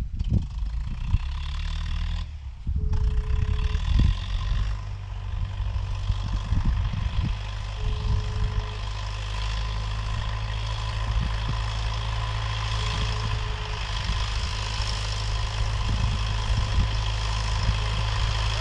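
Telephone ringback tone, the call still ringing unanswered: a thin steady beep about a second long, repeating every five seconds, three times. It sounds over a steady low rumble.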